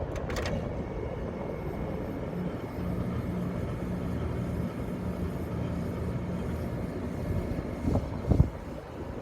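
Early-1990s window air conditioner running on low cool: a steady low hum of the compressor and fan with a faint high whine. There is a click near the start and two thumps about eight seconds in, the loudest sounds here. The owner calls the unit's sound weird and doesn't know whether it means the compressor is failing.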